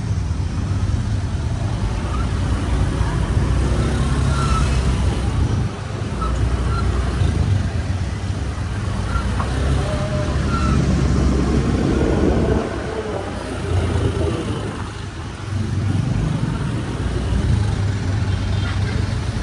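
Motorbike engine running steadily at low speed, heard from on the bike, over the noise of surrounding car traffic. The engine eases off for a few seconds about two-thirds of the way through, then picks up again.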